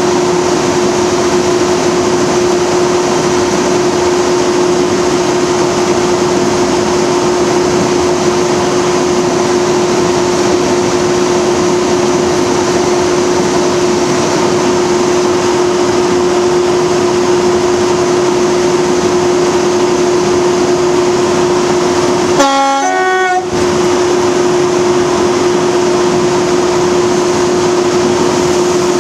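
BR Class 37 diesel-electric locomotive running under power, a steady engine drone with a strong constant hum. About 22 seconds in its horn sounds once, a short two-note blast lasting about a second.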